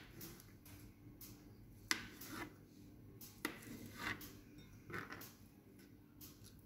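Kitchen knife slicing through hard-boiled eggs and tapping a plastic cutting board: a few faint, sharp taps spaced roughly a second or more apart.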